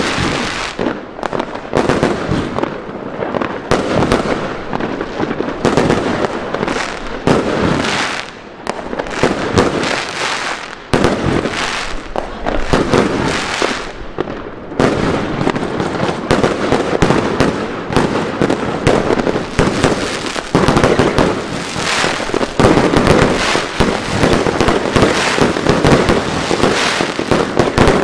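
Aerial fireworks going off in quick succession, a dense run of bangs and crackling bursts. It thins out briefly three times in the first half, then runs as a steadier barrage in the second half.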